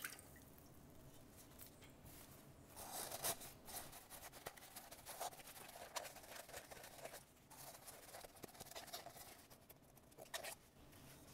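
Faint rubbing of a shop towel wiping out a fuel filter bowl, in several short bouts of strokes.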